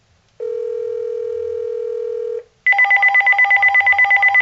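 Uniden SSE25 cordless phone ringing on an incoming call: a steady electronic tone for about two seconds, a short break, then a fast warbling trill. The ring shows the phone is again answering the line's ring signal once the surge-damaged part has been removed.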